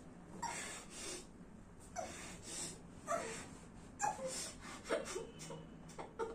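A woman gagged with a cloth breathing hard through the gag in short, quick bursts, with muffled moans, as she struggles against her ties.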